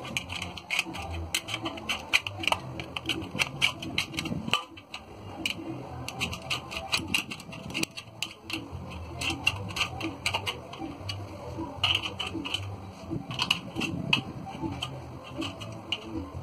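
Hand metal snips cutting through a galvanized steel drywall channel, a run of sharp crunching clips with a short pause partway through.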